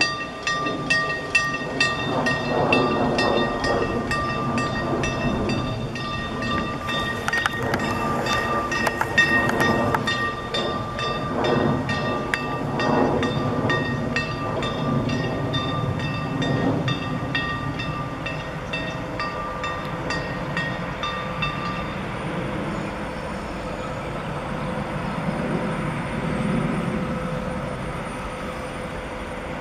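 DB class 151 electric freight locomotive hauling loaded car-transport wagons slowly past: rapid, evenly spaced wheel clicks over rail joints with a steady high squeal. About two-thirds of the way through the clicking and squeal fade, leaving a low rumble.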